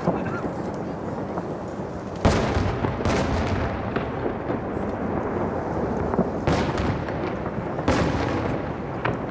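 Aerial firework shells bursting with loud booms, about five in all, the loudest a little over two seconds in. A steady low rumble fills the gaps between them.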